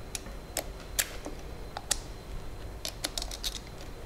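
Small metal clicks and taps as screws are worked out of the upper burr carrier of a Mazzer Major V coffee grinder, the tool and screws knocking against the metal ring. Irregular sharp ticks, about a dozen, the loudest about a second in and near two seconds.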